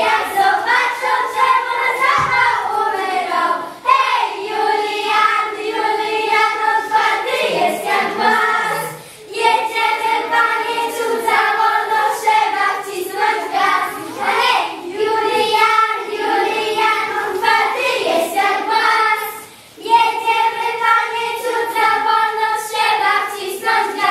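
A group of children singing a song together in unison, in phrases with short breaks between them.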